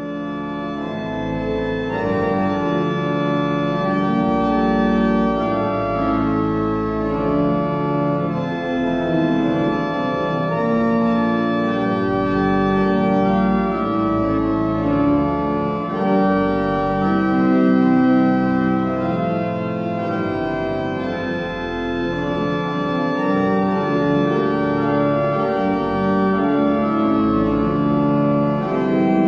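Organ music: slow, held chords over a deep bass line, the notes changing every second or two.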